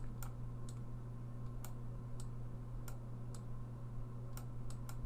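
Faint, irregular light clicks and taps from handwriting a word with a digital drawing input device, about a dozen of them, a few bunched closer together near the end. A steady low electrical hum runs underneath.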